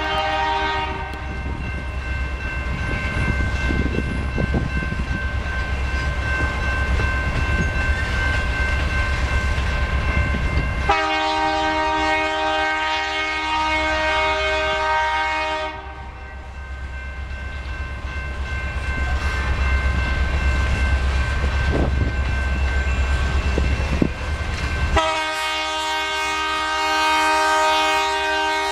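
BNSF diesel freight locomotive's air horn sounding three long blasts, a chord of several tones: the first ending about a second in, the second about 11 seconds in lasting some five seconds, the third starting near the end. Underneath runs the steady rumble and clatter of a freight train rolling past.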